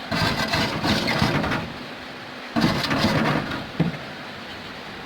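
Two bouts of hand scrubbing on an aluminium refrigerator evaporator, rubbing the area around a puncture clean before it is patched with aluplatinum solder. A short sharp click just before four seconds.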